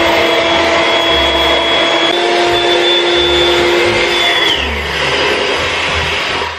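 Air mattress's built-in electric air pump running steadily to reinflate the deflated bed, a loud hum with a rush of air. Its pitch steps up slightly about two seconds in, the hum glides down a little past four seconds, and the rushing noise cuts off at the end.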